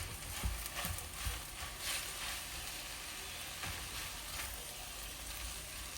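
Food sizzling in a frying pan: a steady hiss, with a few light knocks in the first couple of seconds.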